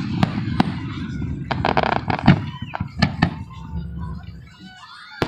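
Fireworks going off: a quick run of sharp bangs and crackles for about three seconds, thinning out and fading toward the end.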